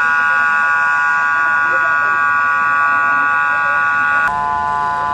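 A loud, steady buzzing tone with many overtones, with people's voices faintly beneath it. About four seconds in, the tone changes abruptly to a different pitch.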